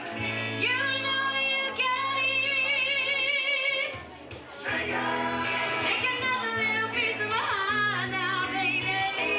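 A woman singing a song over musical accompaniment, holding long notes with vibrato, with a short break between phrases about four seconds in.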